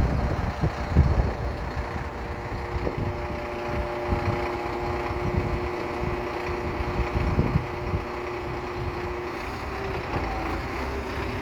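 Scania 114 truck's 11-litre straight-six diesel running steadily, with wind on the microphone. A steady hum holds over the engine from about three seconds in to about nine seconds in.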